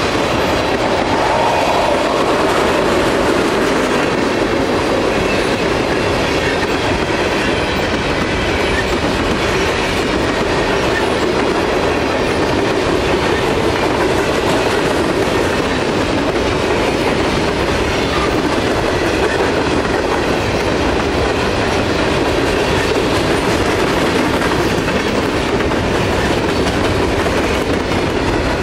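Tank cars and then hopper cars of a freight train rolling steadily past close by: a loud, continuous rumble and rattle of steel wheels on the rails.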